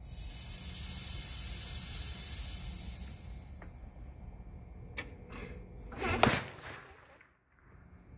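Pressurised gas hissing loudly and steadily for about four seconds from a hydrogen and HHO gas feed, over a low rumble. Then comes a sharp click, and about six seconds in a short loud whoosh, after which the sound dies away almost to nothing for a moment.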